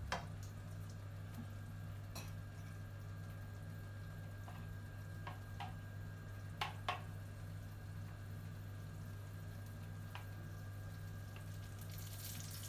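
Chili paste and palm sugar quietly sizzling and bubbling in oil in a nonstick wok, over a steady low hum, with a few light clicks of a metal spatula against the pan. Near the end, tamarind water is poured into the hot wok and hisses louder.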